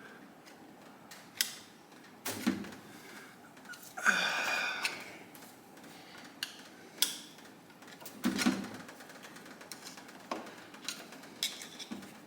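Scattered clicks and clinks of metal engine parts and hand tools being handled during a motorcycle engine teardown, with dull knocks about two and eight seconds in and a rough scraping rustle about four seconds in.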